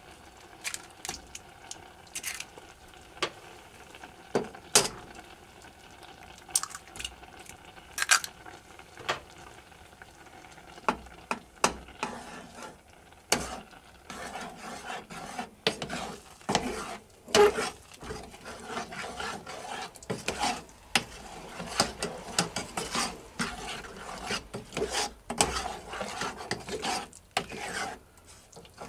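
A spoon stirring and scraping thick rice porridge in a saucepan, with knocks of the spoon against the pot. The strokes are sparse at first and become steady, continuous stirring from about halfway through.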